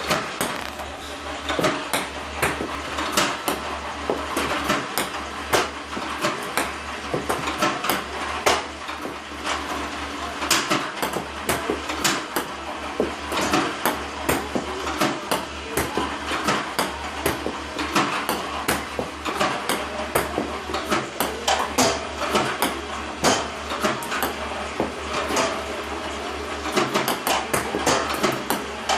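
iPong Pro table tennis robot running with a steady motor hum while it launches ping-pong balls, with many sharp irregular clicks of balls being fed, fired and bouncing. The uneven feeding is the sign of the robot misfiring, a fault that has been getting more frequent.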